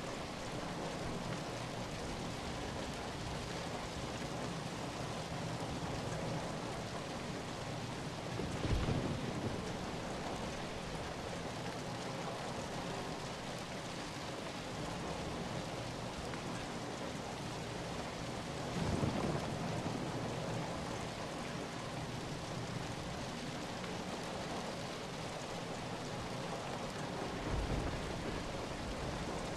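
Steady rain falling, a dense even hiss, with three brief low rumbles swelling out of it.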